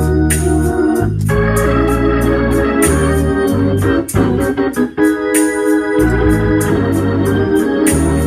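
Hammond organ played solo: sustained chords over a changing bass line. About four seconds in come a few short, choppy chord stabs, and the bass drops out for about a second before coming back.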